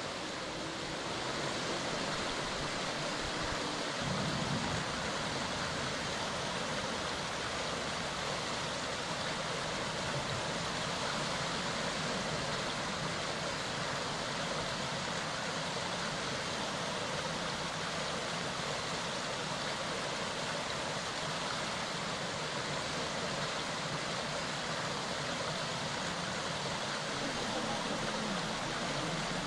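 Mountain stream running steadily: an even, unbroken rush of flowing water.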